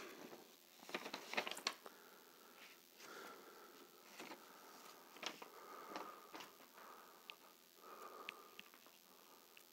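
Near silence: quiet room tone with a few faint clicks and rustles, a small cluster of them about a second in.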